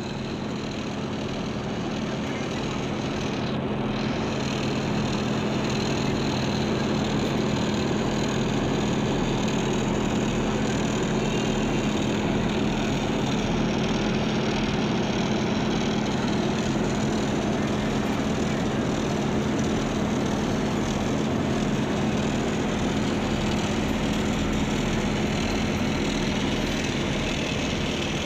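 Diesel engine of road-paving machinery running at a steady speed, a constant low hum that grows a little louder over the first few seconds, then holds steady.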